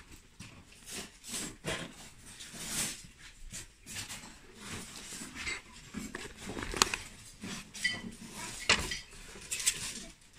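Close handling noise of a black leather backpack being rummaged through and set back down into a box of goods: rustling with scattered light clicks and knocks.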